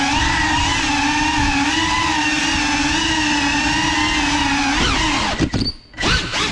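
Brushless motors and ducted propellers of a Cinelog 35 cinewhoop drone whining steadily in flight, heard from the camera on board, the pitch wavering with the throttle. About five seconds in, the throttle is chopped: the whine falls away to near quiet for a moment, then comes sharply back up.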